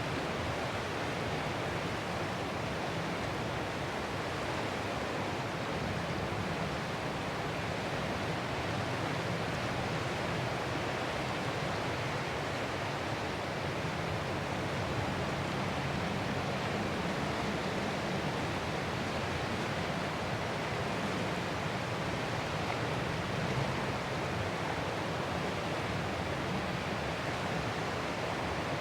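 Ocean surf heard as a steady, even rushing noise, with no distinct breaking waves standing out.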